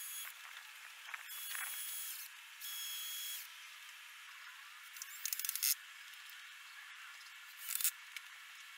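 Cordless drill driving screws in short runs of under a second, the motor whining steadily, three times in the first three and a half seconds. Later come two short bursts of rapid rattling clicks.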